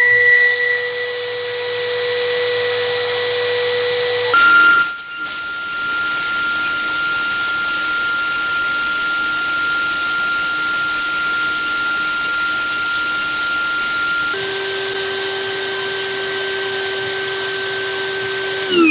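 Cordless drill's brushless motor free-running unloaded at a steady high whine, drawing down a 2 Ah battery in a run-time test. Its pitch steps up abruptly about four seconds in, drops abruptly again about fourteen seconds in, and begins to fall at the very end as the motor slows.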